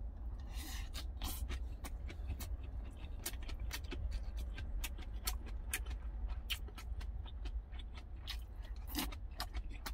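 Close-up eating sounds: a mouthful of rice and seasoned bean sprouts being chewed, with many irregular crisp clicks and crunches, and a spoon now and then scraping in a food jar, over a steady low hum.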